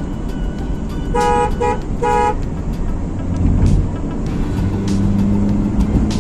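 A car horn gives three short beeps about a second in, over the steady low drone of a car driving on the road.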